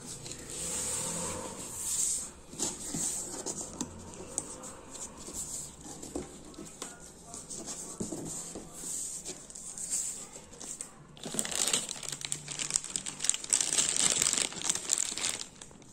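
Rustling and crinkling of packaging as a cardboard box is opened and its paper and foam wrapping handled, then a clear plastic bag crinkling loudly for the last few seconds as it is lifted out of the box.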